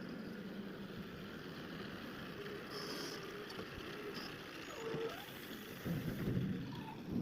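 Mahindra backhoe loader's diesel engine running steadily, louder for a moment about six seconds in.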